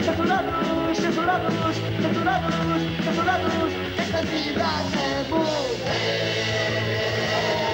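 Punk rock band playing live, with singing over a distorted electric-guitar riff that repeats about once a second. About four seconds in, a sweeping downward slide leads into held chords.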